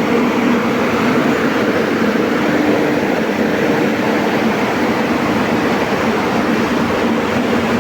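Corn dryer running: a steady rushing noise, as of its large fan, with a low hum.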